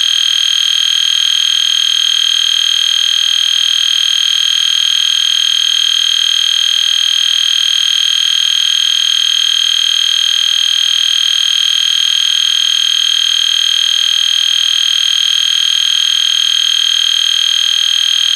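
EST Genesis fire alarm horn sounding one steady, unbroken high-pitched tone, run as a continuous signal instead of its usual on-off temporal pattern.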